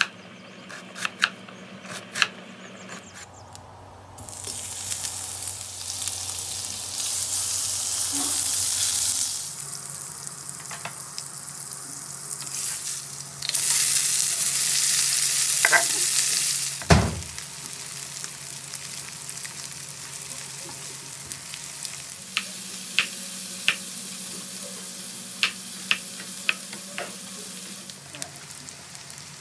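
Knife chopping on a wooden cutting board in sharp ticks, then sliced onions sizzling loudly as they fry in butter in a pan, with one heavy thump just past the middle. Near the end the knife chops on the board again, more sliced vegetables.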